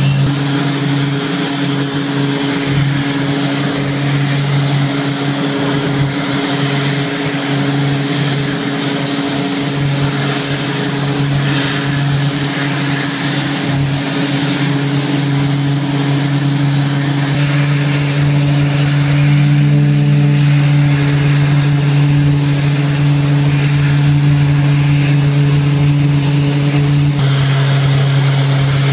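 Large show machines running with a loud, steady engine drone at a constant pitch, with a thin high whine over it and a noisy wash of running machinery; the pitch shifts just at the end.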